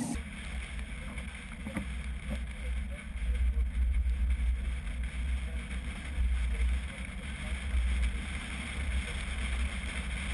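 Low, gusty rumble of wind buffeting the microphone of a camera mounted on the roof of a moving vehicle, swelling and easing every second or so.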